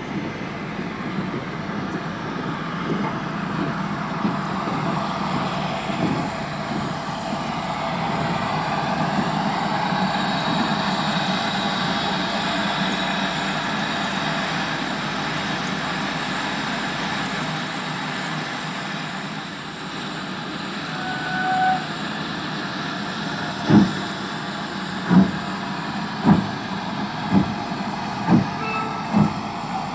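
GWR Modified Hall 4-6-0 steam locomotive No. 6990 Witherslack Hall, first with a steady hiss of steam. A short whistle note sounds partway through. It then starts away with sharp exhaust chuffs that come steadily faster as it gathers speed.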